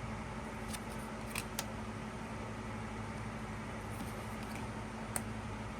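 Steady low electrical hum of the room, with a few faint clicks of small photo cards being handled, about a second and a half in and again near the end.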